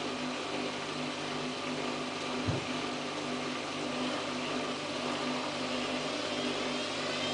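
Samsung WF8804RPA front-loading washing machine doing a spin in its service test mode: a steady motor hum from the turning drum, with a single low thump about two and a half seconds in. Near the end a rising whine starts as the drum begins to speed up.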